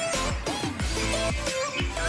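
Background music with a steady beat of deep kick drums, about two a second.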